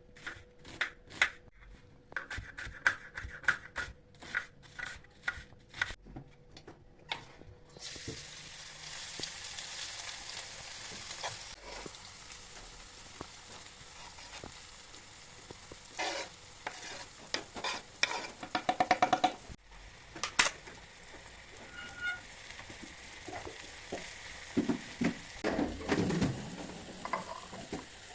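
Sharp clicks and taps for several seconds. Then, about eight seconds in, food starts sizzling in a hot pan, with a utensil clicking and scraping against the pan as it is stirred, including a quick run of ticks partway through.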